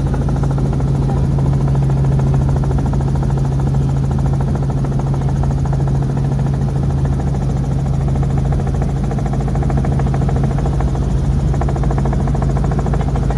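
Robinson R44 helicopter in flight: a loud, steady engine drone with a fast, even rotor pulse.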